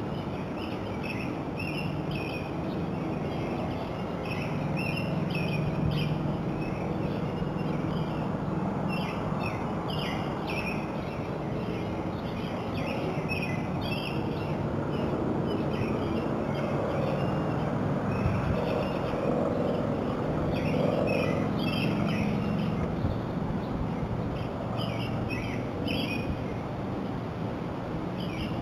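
Small birds chirping in short, repeated calls throughout, over a steady background of outdoor hiss and low hum.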